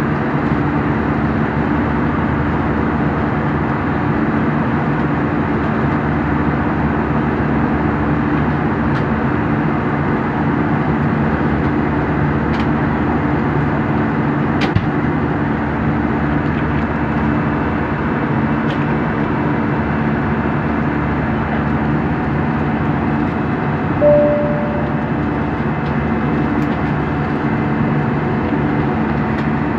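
Steady airliner cabin noise in cruise: a constant rush of air with a low engine hum. A short single tone sounds about 24 seconds in.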